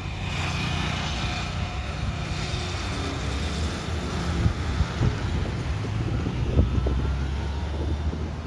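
Airbus A320's jet engines rumbling steadily as the airliner flies past low, with a faint high whine early on that fades, and wind buffeting the microphone.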